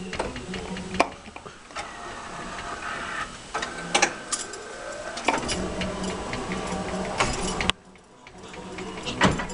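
Claw machine running: a steady motor whir with repeated sharp clicks and knocks from the moving claw mechanism. The whir cuts off abruptly near the end, then starts again about a second later.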